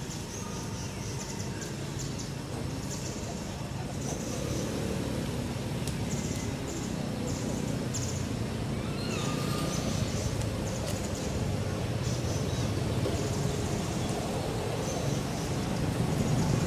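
Outdoor background sound: a steady low rumble that grows slightly louder toward the end, with scattered short high bird chirps.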